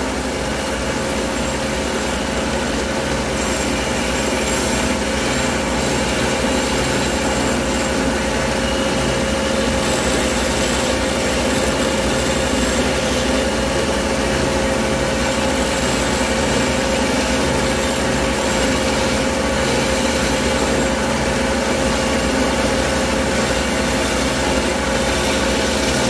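Taurus 3 diamond-plated ring saw running steadily, its blade cutting into a thick fused dichroic glass pendant. A constant mid-pitched tone sits over an even hiss of the cut.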